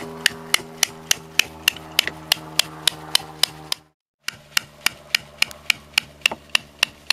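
Hammer striking a metal stem bolt, driving it into a wooden boat's stem, in steady blows about three and a half a second. The blows break off briefly about four seconds in, then resume at the same rate. Soft background music with held chords runs underneath.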